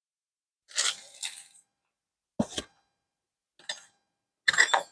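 Cooking utensils and a paper plate being handled on a plastic cutting board: four short clatters and rustles with pauses between, the last, near the end, the loudest.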